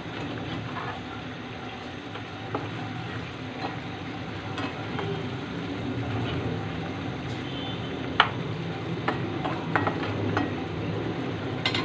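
Rohu fish pieces frying in a spiced masala in a pan, being fried down (kosha) while a spatula stirs and scrapes through them, with scattered clicks of the spatula against the pan and one sharp knock about eight seconds in.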